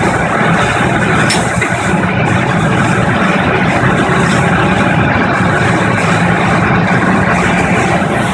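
A machine that turns crushed woven polypropylene bag scrap into plastic granules, running with a steady, loud mechanical drone.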